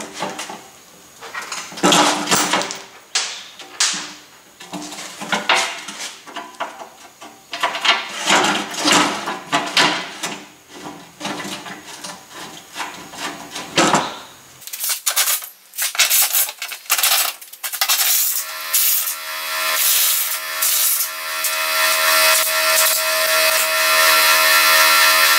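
Metal clanking, knocking and scraping as a truck's metal skid plate is pushed into place and its bolts are started. In the last third a steady droning tone with several pitches comes in and grows louder.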